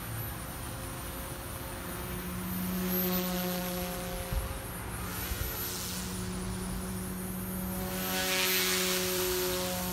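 OMPHOBBY M2 electric RC helicopter flying overhead: a steady hum and whine from its motor and spinning rotor blades, swelling louder for a moment about eight seconds in.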